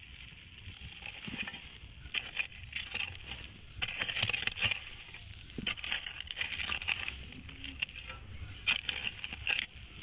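Hoe blade scraping and dragging loose earth into a hole, soil and grit crunching and falling in, in repeated strokes about every second or two.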